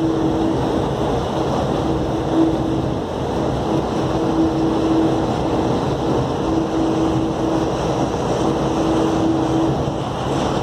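Cabin noise of the Skylink automated people-mover train running: a steady rumble with a humming tone that comes and goes.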